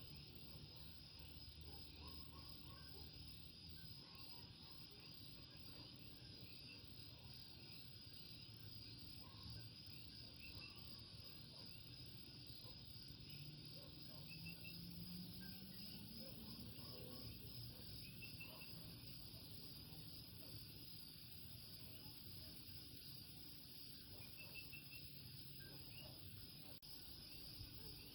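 Faint night chorus of coquí frogs, many short two-note calls overlapping over a steady high insect hum. A faint low hum rises about halfway through.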